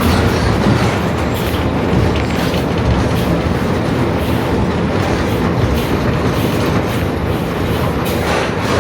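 Onboard sound of a Mercedes-Benz OF-1721 BlueTec 5 diesel city bus underway: a steady, loud running noise with scattered rattles. It carries the growl of the rear differential, which the uploader calls 'roncando' (growling).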